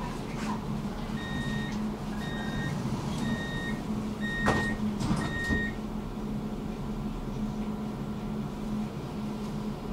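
Tram door-closing warning: five short, high beeps about two-thirds of a second apart, with a sharp knock during the fourth beep as the doors shut. Under it runs the tram's steady low hum.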